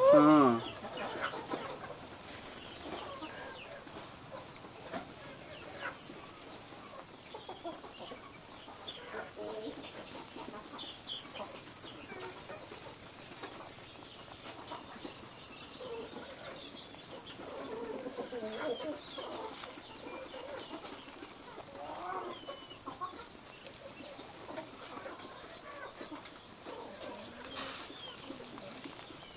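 Faint bird calls in the background, scattered short clucks, with a busier run of them a little past the middle.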